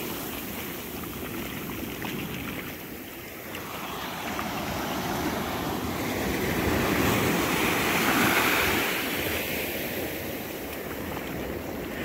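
Small Atlantic surf breaking and washing up the sand, swelling about halfway through and easing off near the end.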